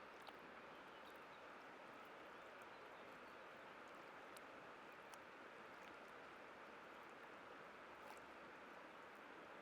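Faint, steady rushing of a white-water river flowing over rocks, with a few brief faint ticks scattered through it.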